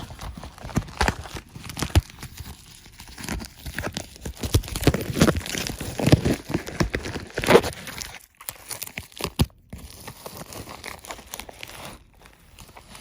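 Mail packaging around a Blu-ray being torn open and crinkled by hand: irregular rustling and ripping, loudest about five to eight seconds in, then lighter handling.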